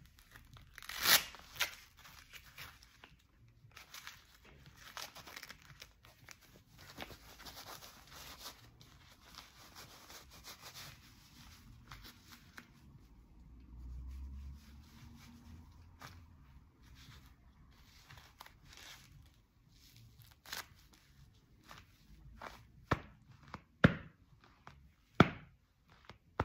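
Reusch Attrakt Gold X Evolution Cut goalkeeper gloves being handled and flexed by hand: soft rustling and rubbing of the gloves, with a few sharp, louder sounds about a second in and twice near the end.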